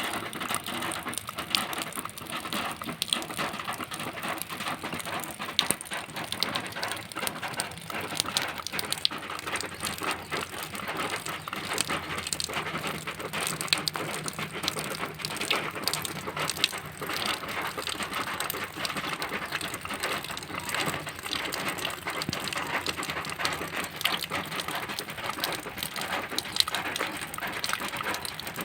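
Rain falling on a zinc roofing sheet: a steady, dense stream of drops striking the metal, made up of many sharp ticks with no letup.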